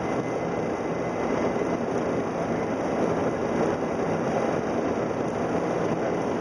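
Steady flight-deck noise of a Boeing 737-400 on final approach: an even rush of airflow and engines with a faint low hum underneath.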